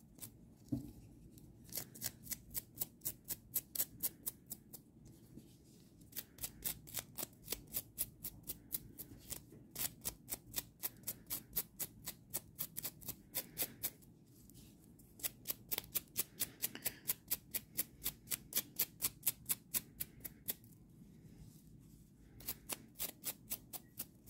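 A small brush scraped rapidly along crocheted acrylic-yarn spider legs, about four quick scratchy strokes a second, in runs of several seconds with short pauses. The brushing raises the acrylic fibres to make the yarn fluffy.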